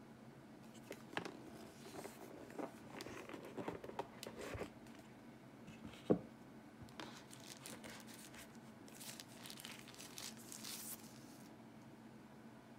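Cardboard phone box being handled and opened, with scattered rustles and clicks, and a single sharp knock about six seconds in. Near the end, thin plastic wrapping crinkles as the phone is lifted out.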